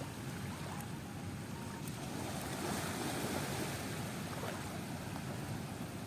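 Steady outdoor rushing ambience, swelling a little about three seconds in.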